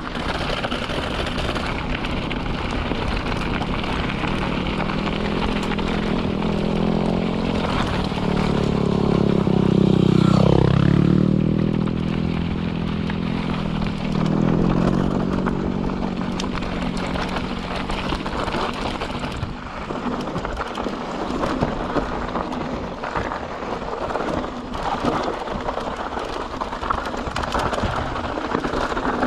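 YT Capra 29 mountain bike riding fast down a dirt trail: continuous tyre roar and rattle, with wind on the microphone. About ten seconds in, a humming tone drops in pitch and climbs again as the bike slows and picks up speed.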